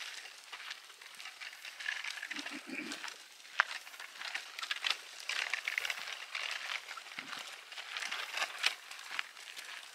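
Footsteps crunching and scuffing on a dirt and gravel trail, uneven, with rustling between steps and one sharp click about three and a half seconds in.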